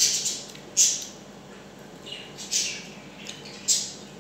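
Close-up eating sounds from a person eating rice and chicken adobo with her fingers: a handful of short, sharp wet smacks and sucks of the lips, about a second apart.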